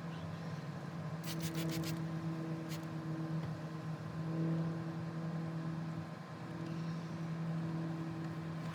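A steady motor hum, with a quick run of about five clicks a little over a second in and one more click shortly after.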